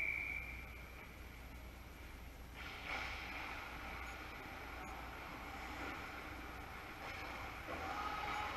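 A short whistle at the start, then the steady noise of an ice hockey rink during play, which grows louder about two and a half seconds in.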